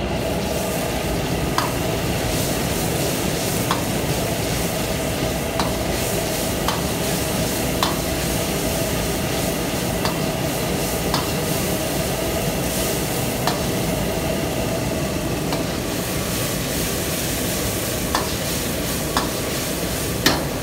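A steel ladle stirring in a steel wok of sizzling food on a commercial gas wok burner, with a steady frying sizzle and the ladle clinking against the wok about once a second.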